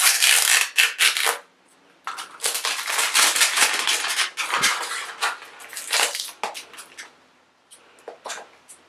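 Thin plastic wrapping crinkling and tearing as small toy pieces are unwrapped and handled, in dense bursts with a short pause about a second in and sparser crackles near the end.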